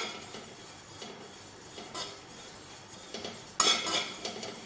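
A spatula scraping and clinking against a kadhai as poha roasts in it. It is quiet at first, then louder, irregular scraping and clatter start about three and a half seconds in.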